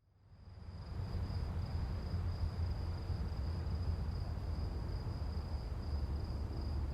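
Forest ambience with a steady high-pitched chirring of crickets over a low rumble, fading in over the first second and starting to fade out at the very end.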